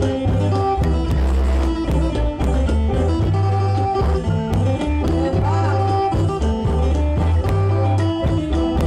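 Live Tai Kha folk music: several khaen (bamboo free-reed mouth organs) playing sustained chords and melody over a drum beat and sharp percussion strokes.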